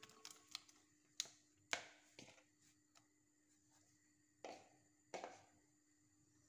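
Faint clicks and taps: several sharp ones in the first two and a half seconds, then two softer, slightly longer knocks about four and a half and five seconds in, over a faint steady hum.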